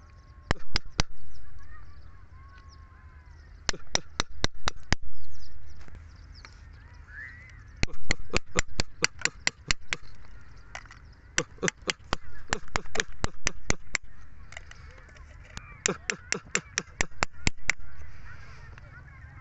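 Steel chisel chipping into chalky white rock around an embedded stone: runs of rapid, sharp taps, several a second, with short pauses between the runs.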